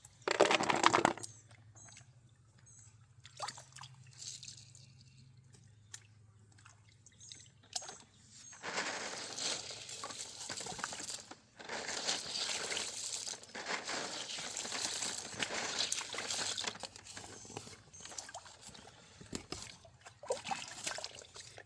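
Water pouring and sloshing as gravel is washed through a sifting screen in a stream. A long stretch of steady pouring starts about a third of the way in, and a loud burst about a second long comes right at the start.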